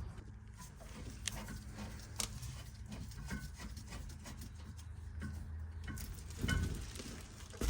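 Hands and tools working on a car's rear brake caliper as it is fitted and its bolts started: scattered light metallic clicks and rubbing, with a louder knock about six and a half seconds in and a sharp clack near the end.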